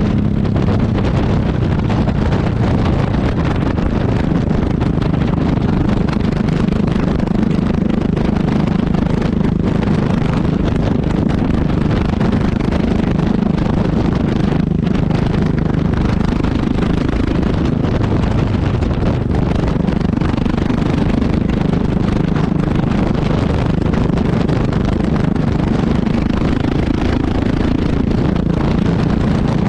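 Yamaha XT660X's single-cylinder four-stroke engine heard through its exhaust, running steadily under way. Its pitch drifts a little lower around the middle and rises again near the end.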